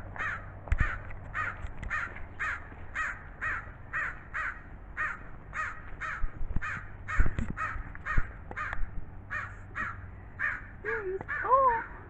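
American crow cawing over and over, about two harsh caws a second. Near the end, a couple of lower sounds with wavering, gliding pitch join in.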